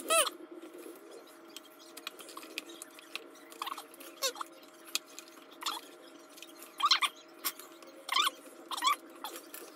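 Chunks of almond bark clicking lightly as they are dropped into a crockpot insert, with a series of short squeaky chirps that bend up and down in pitch, louder than the clicks, every second or so.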